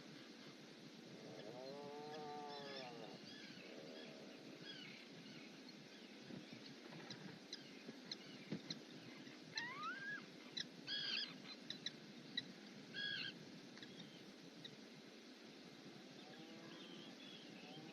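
Bird calls: a low, drawn-out call that rises and falls in pitch near the start and again near the end, with short high chirps and one rising whistle in the middle.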